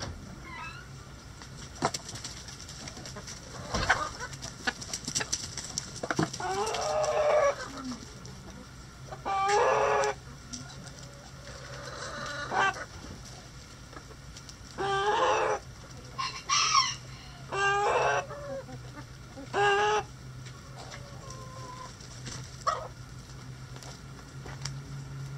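Backyard chickens, hens and roosters together, clucking and calling. A run of loud, short calls comes in the middle, including rooster crowing, and a few sharp clicks are heard in the first half.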